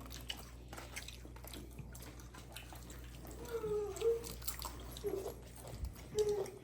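A small child's brief wordless murmurs and mouth sounds while eating, a few short high-pitched vocal sounds over faint clicks and smacks.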